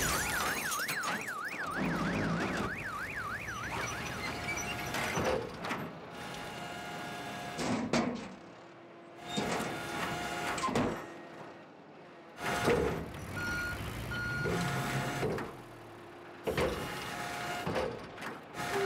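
Cartoon sound effects of a tracked excavator. A car alarm warbles rapidly up and down for about the first four seconds. After that come repeated mechanical clunks and knocks with whirring motor sounds as the boom and bucket swing about, and intermittent beeping.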